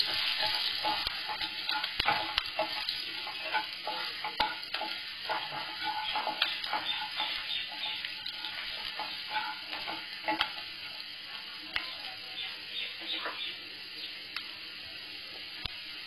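Chopped garlic, ginger and green chilli sizzling in hot oil in a non-stick frying pan, with a wooden spatula stirring and knocking against the pan. The stirring knocks thin out in the last few seconds, leaving the steady sizzle.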